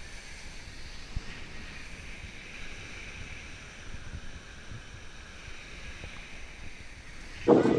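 Steady hiss of small waves washing onto a sandy shore, with wind on the microphone.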